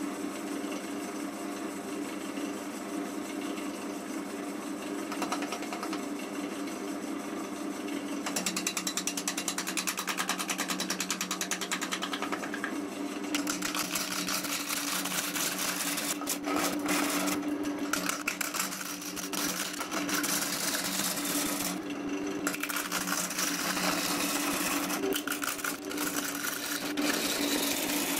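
Axminster AC370WL wood lathe running with a steady motor hum while a gouge cuts a spinning lime (linden) wood bowl blank, the tool hissing and scraping through the wood. The cutting gets louder about eight seconds in and louder again from about thirteen seconds, choppy with many short breaks.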